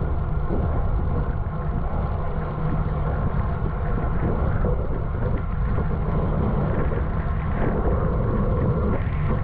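Steady wind rushing over the microphone of a bicycle on the move, with low road rumble underneath.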